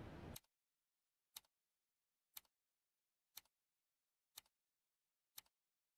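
A clock ticking at one tick a second, six sharp ticks with near silence between them. A soft hiss cuts off just before the first tick.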